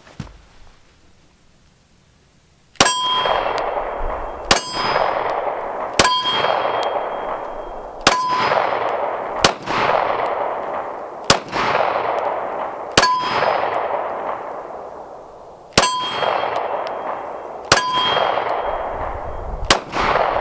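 PSA Dagger Compact 9mm pistol firing about ten shots at a slow, even pace, most of them followed by the ringing clang of a hit steel target. Every round of 147-grain hollow-point reloads fires and cycles without a malfunction.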